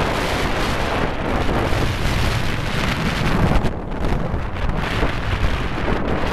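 Strong summit wind blowing straight across the microphone: a loud, gusting rumble of wind noise with no other sound standing out, easing briefly a little before four seconds in.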